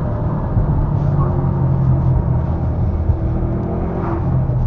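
2004 Maserati Coupe GT Cambiocorsa's Ferrari-derived V8 engine and exhaust running under way, heard from inside the cabin. The pitch holds fairly steady, with a slight rise and fall.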